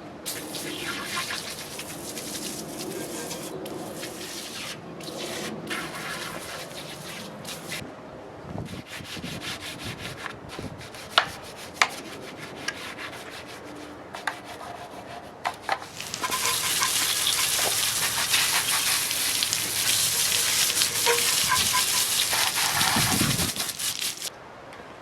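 An engine block being degreased: scrubbing and rubbing noises with a few sharp clicks, then a loud, steady hiss of spraying for about eight seconds near the end.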